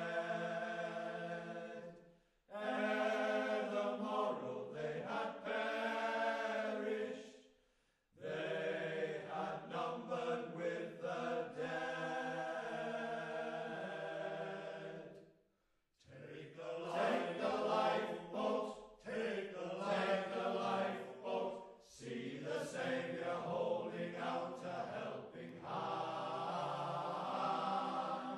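Male voice choir singing in long sustained phrases, with short breaks between them.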